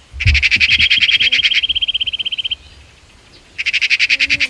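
Forest animal calls: fast, high-pitched pulsed trills of roughly fifteen pulses a second, in two bouts with a short lull between them.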